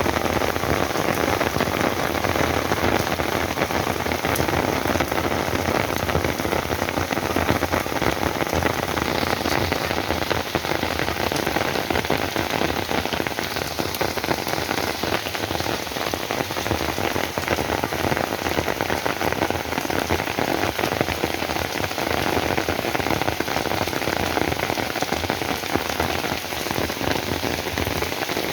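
Heavy rain falling steadily, a dense patter of drops hitting the ground and surfaces.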